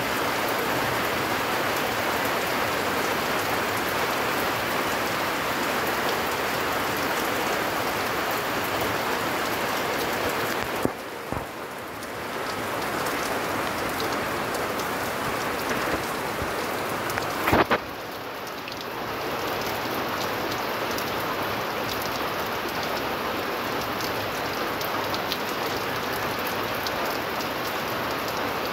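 Heavy typhoon rain falling steadily on a thatched roof and a wet concrete yard. Two sharp knocks break in, one about a third of the way through and a louder one past the middle, after each of which the rain sounds quieter and duller for a while.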